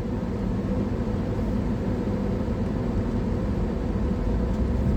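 Car driving on the road, heard from inside the cabin: a steady low rumble of road and engine noise.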